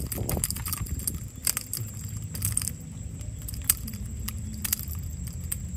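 Scattered sharp clicks and rustles of fishing tackle and water hyacinth as a small pangasius is hauled up on the line, over a low steady rumble.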